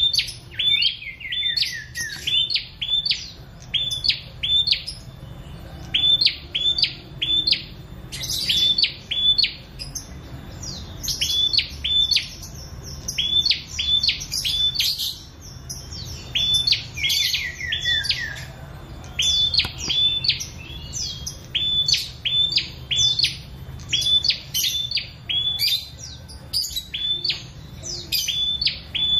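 Caged prenjak singing vigorously: a rapid series of sharp, high chirps, about two to three a second, with a couple of downward-sliding runs and a few short pauses.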